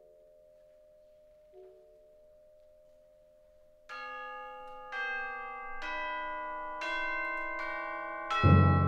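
Tubular bells struck six times, about once a second, each stroke ringing on under the next, after a few soft mallet-percussion notes. Near the end a loud, deep timpani stroke comes in under the bells.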